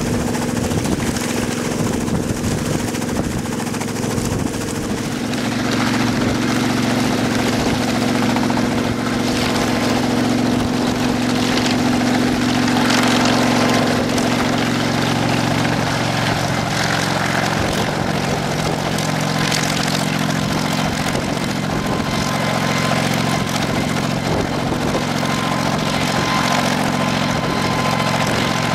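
Kamov Ka-26 coaxial-rotor helicopter hovering, its twin nine-cylinder radial piston engines running steadily under the rush of the rotors. The engine note shifts slightly a couple of times.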